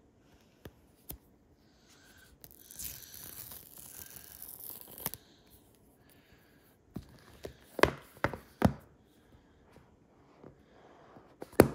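Paper pull-tab seal on a cardboard iPhone box being torn off, a scratchy tearing lasting about two and a half seconds. It is followed by several sharp knocks of the box against a granite countertop, the loudest near the end.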